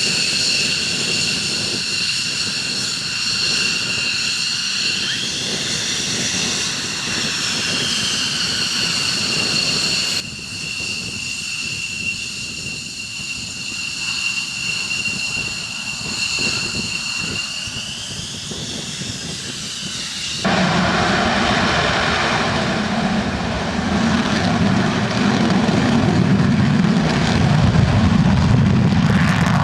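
Jet aircraft engines with a steady high turbine whine that bends slightly in pitch. The sound cuts abruptly twice, about ten and twenty seconds in; after the second cut a louder, rougher low rumble with a hissing roar takes over.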